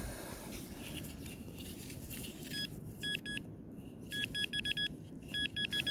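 Handheld metal-detecting pinpointer beeping as it is swept over a target in the sand: a single short beep, then runs of short beeps coming quicker and closer together as the probe homes in on the metal.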